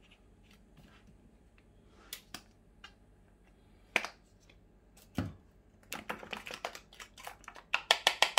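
Wooden spoon stirring mayonnaise in a stainless steel bowl, knocking and scraping against the metal in a quick run of clicks over the last couple of seconds. A few single taps and clicks come before it, as the mayonnaise squeeze bottle is handled over the bowl.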